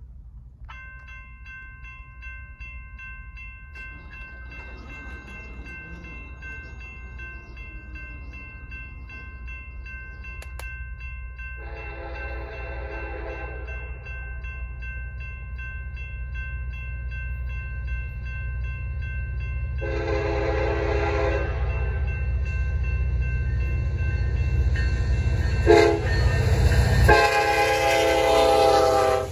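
Grade-crossing warning bells ring at a steady rapid pace while the gates lower, then stop about halfway through. An approaching Union Pacific freight train's lead locomotive, an EMD SD70ACe, sounds its horn for the crossing in the standard long, long, short, long pattern, over a low rumble that grows steadily louder as the train nears.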